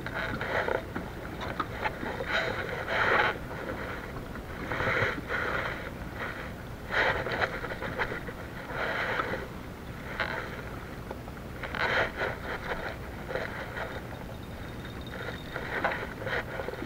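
Spinning reel being cranked in short bursts, its gears whirring and ticking, about every one to two seconds while reeling in a hooked fish.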